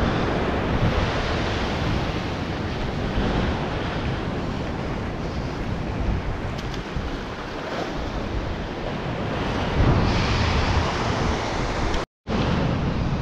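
Ocean waves washing against a rocky shoreline, a steady rushing surf with a louder surge about ten seconds in, with wind buffeting the microphone. The sound cuts out briefly near the end.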